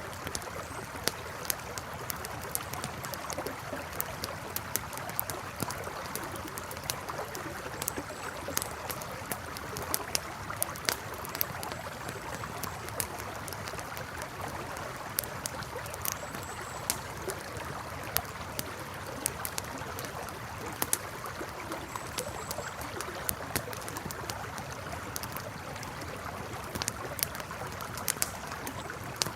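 Campfire crackling with irregular sharp pops over the steady rush of a flowing river.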